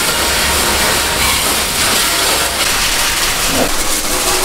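Water spraying hard from a hose nozzle onto the painted steel floor of a boat's bilge, a steady hiss of spray and splashing.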